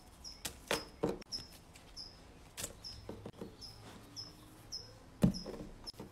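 A small rabbit nibbling a strawberry: scattered soft wet clicks and crunches, with one louder knock about five seconds in. A short, high chirp repeats about twice a second behind it.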